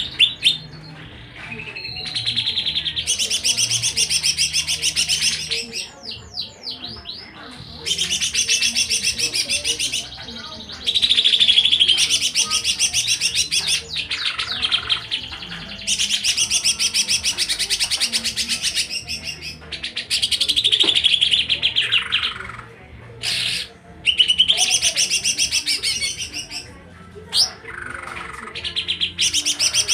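A songbird singing vigorously in long phrases of rapid, high trilling notes, each phrase a few seconds long with brief pauses between.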